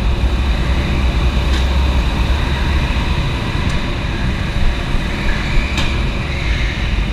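Go-kart engines running steadily in an indoor hall, giving a deep, continuous rumble with a few sharp clicks.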